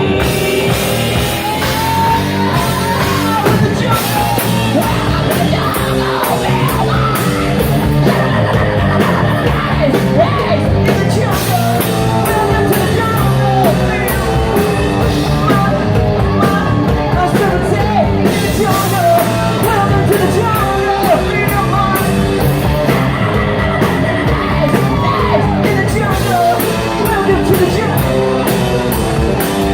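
Live rock band playing loudly, with yelled vocals at times.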